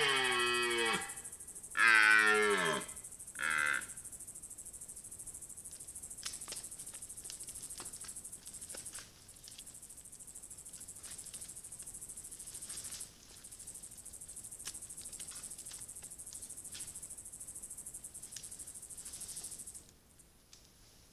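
Red deer stag roaring in the rut: a long, deep call falling in pitch, a louder second roar about two seconds in and a short third one. It is followed by scattered soft splashes and clicks as the stag works its antlers and body in a mud wallow.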